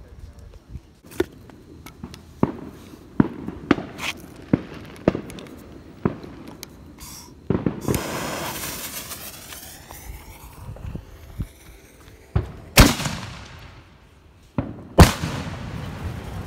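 Sharp firework reports crack one after another early on. A torch hisses for a couple of seconds as it lights the fuse of a 6-inch canister shell. Then two loud booms ring out with long echoes, the second near the end: the shell going off.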